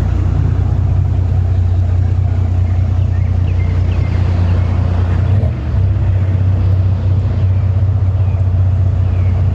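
A heavy vehicle's engine running steadily as a loud, even low drone, dipping briefly about halfway through.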